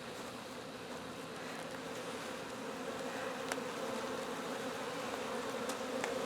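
A large colony of honeybees buzzing as its nest is opened up: a steady hum that grows slightly louder, with a few faint clicks.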